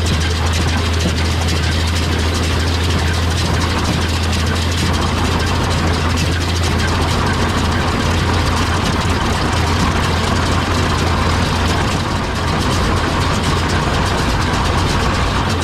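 Tractor engine running steadily with a low drone, working a John Deere small square baler whose machinery adds a constant clatter.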